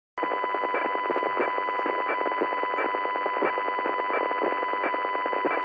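Steady electronic beep-like tone over a buzzy layer, with a faint tick about every two-thirds of a second. It starts abruptly out of dead silence and holds level.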